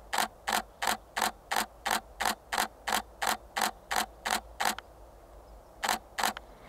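Camera shutter firing repeatedly, about three shots a second for some four and a half seconds, then a short pause and two more shots near the end.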